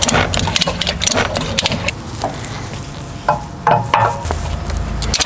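Ratchet tie-down strap being tightened on a motorcycle carrier: irregular clicking and rattling of the metal ratchet buckle and hooks as the webbing is pulled through.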